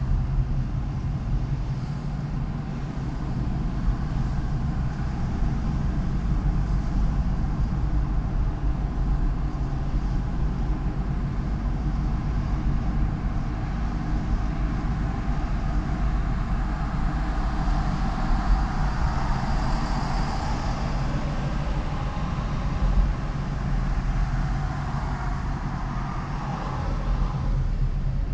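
Car driving on city streets: steady engine and tyre road noise, swelling for a few seconds past the middle.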